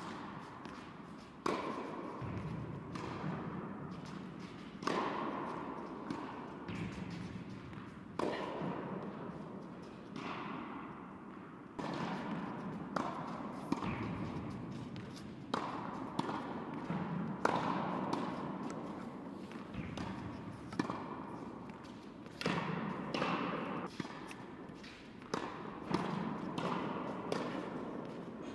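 Tennis ball being hit with rackets and bouncing on an indoor hard court during a rally. There is a sharp knock every one to three seconds, and each one rings on in the hall's echo.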